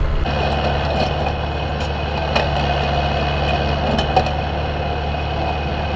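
Cat 305 mini excavator's diesel engine running under work, with a steady hydraulic whine that sets in just after the start as the machine digs. A few short sharp knocks come around two and a half and four seconds in.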